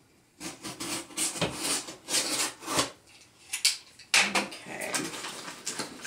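Box knife slicing through packing tape on a cardboard box in a series of scraping strokes, then cardboard rustling and rubbing as the box is handled.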